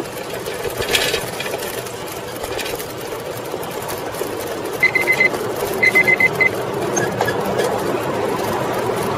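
A Coker Monster Cruiser bicycle with 36-inch tires rolling over a brick-paved sidewalk, the bike-mounted microphone picking up a steady rattle and tire rumble. Near the middle come two short bursts of rapid high beeping, about a second apart.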